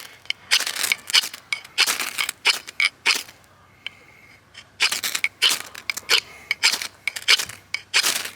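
A ferrocerium rod struck again and again with a scraper, short rasping scrapes about two a second throwing sparks into a dry-grass tinder bundle, with a short pause about halfway through.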